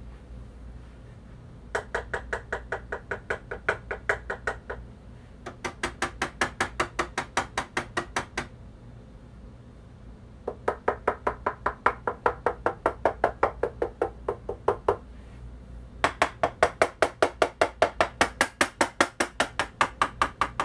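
Fingertip tapping test on the plastic tonearm back covers of two Sony PS-X555ES turntables, a stock one and one damped with a supplemental plinth, in four quick runs of about five taps a second. Two runs carry a ringing tone between the taps and two are drier clicks, showing how differently the covers resonate.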